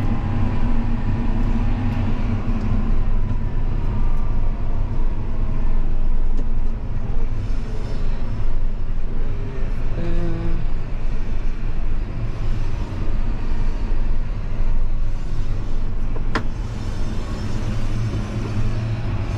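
Tractor engine running with a steady low drone while pulling up slowly; a single sharp click about three-quarters of the way through.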